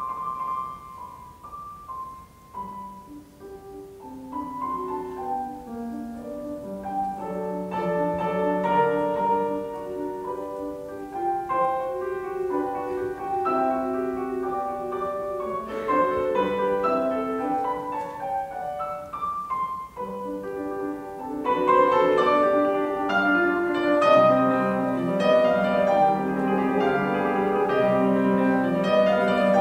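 Grand piano playing a solo passage with the orchestra silent: it begins soft with sparse single notes, grows busier, and about two-thirds of the way in turns suddenly fuller and louder with rapid chords across the keyboard.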